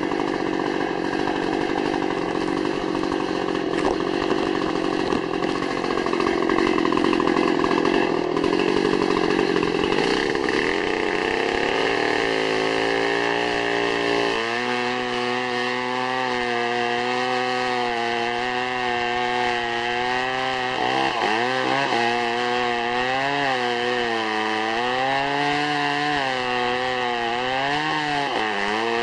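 Two-stroke chainsaw running flat out and cutting wood. In the second half the engine's pitch repeatedly dips and climbs back as the chain bites under load.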